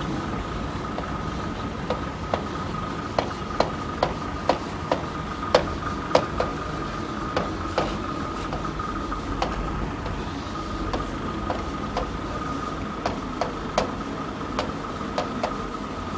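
A marker tapping and scraping on a board while a heading is written letter by letter: irregular sharp taps, a few a second at most, over a faint steady high tone.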